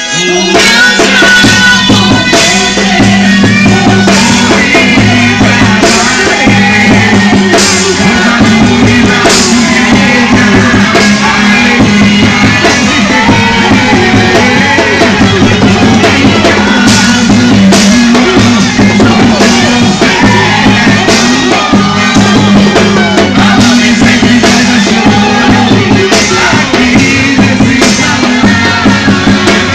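Loud music with drums, starting suddenly at full volume.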